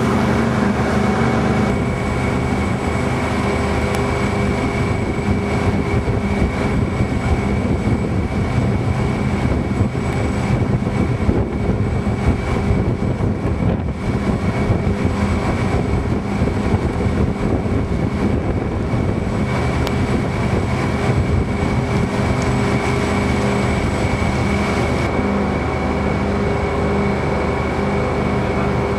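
Boat engine running steadily, a constant drone with a thin high whine over it.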